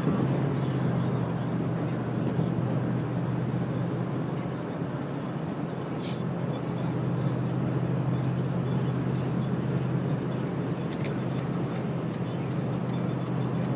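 Steady road and engine noise of a car driving along a highway, heard from inside the cabin: a constant low hum with tyre and wind noise above it.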